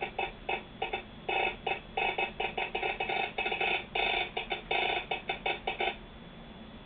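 American Morse code sent on a Vibroplex semi-automatic telegraph key, heard as a buzzing signal keyed in a fast, irregular run of short and long elements. It is part of a railroad train order. The sending stops about six seconds in, leaving a faint hiss.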